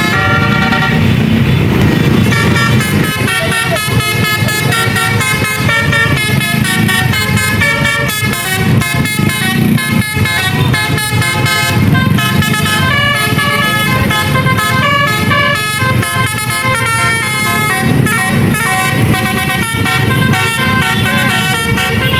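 Bus basuri horns, a set of multi-tone musical air horns, playing a tune note after note over the low rumble of the running bus.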